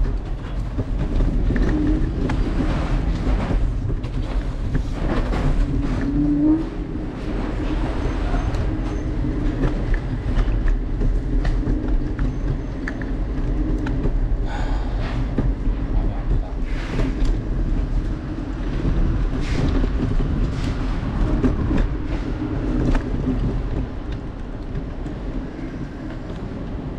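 Steady rumble of a vehicle riding along city streets, with a low drone that rises briefly about six seconds in and frequent irregular rattling knocks.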